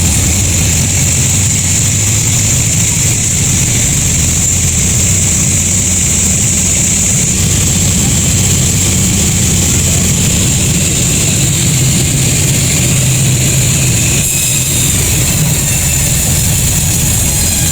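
Sawmill machinery running steadily, with a low motor hum under a constant high-pitched whine.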